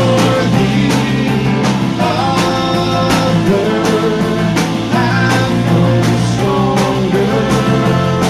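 A live rock band playing a song, with drums hitting at a steady beat under guitar and melodic lines that glide between notes.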